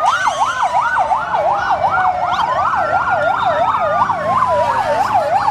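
Two electronic emergency sirens sounding together: a fast yelp sweeping up and down about three times a second, over a slower wail that rises and falls every few seconds.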